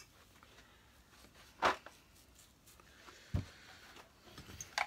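A few handling knocks as vacuum cleaner parts are moved about on a workbench: a sharp click about a second and a half in, a dull thump around three and a half seconds, and another short click near the end.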